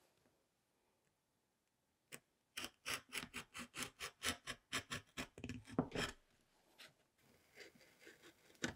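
Kitchen knife splitting and scraping a vanilla bean on a bamboo cutting board: after a single click, a run of quick strokes, about five a second, goes on for several seconds. Softer scraping of the seeds follows, with a sharp click near the end.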